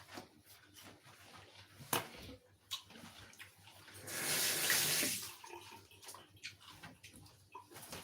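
Kitchen tap running for about a second and a half partway through, after a couple of short knocks.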